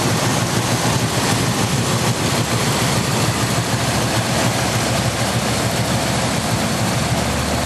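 1968 Chevrolet Malibu's engine idling steadily.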